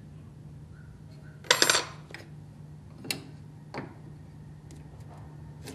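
A small steel square clinking and tapping against the timber and bench as pencil lines are marked: a quick rattle of ringing metal clicks about one and a half seconds in, then single taps about three and four seconds in, over a steady low hum.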